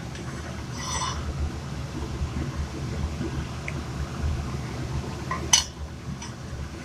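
Frying pan on a gas stove grate: a short ringing metallic clink about a second in and a sharp knock later on, over a steady low hum.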